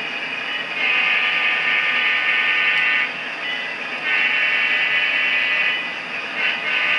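Metal wheels of HO scale model hopper cars rolling past on the track, making a steady buzzing whine that swells louder twice for about two seconds at a time.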